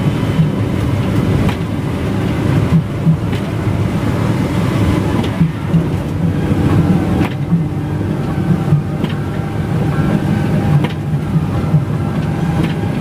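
Inside a coach bus travelling at speed: a steady low drone of engine and road noise, with a few short knocks and rattles from the bodywork scattered through.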